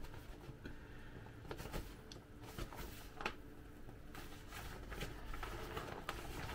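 Faint rustling and soft scattered clicks of a thin plastic inflatable toy being handled, over low room hum.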